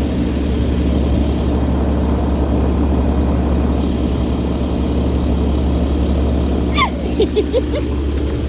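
Car engine running steadily with a constant low hum. A few short, quick chirps come near the end.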